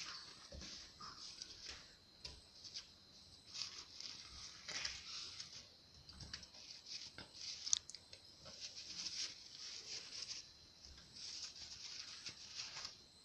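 Faint sizzling of a sauce in a hot pan, with scattered soft taps and clinks as fried chicken pieces go in, and one sharper tick about eight seconds in.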